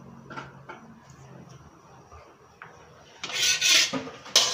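Metal spatula scraping around the inside of an empty aluminium wok: a few faint taps, then a loud scraping stroke about three seconds in and another near the end.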